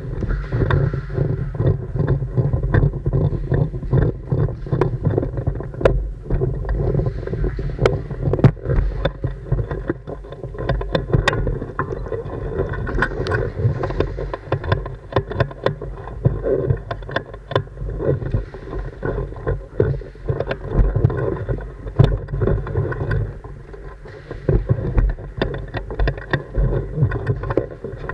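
Airsoft game: a steady rumbling of movement and handling noise on the microphone, with many sharp, irregular clicks of airsoft guns firing and BBs striking.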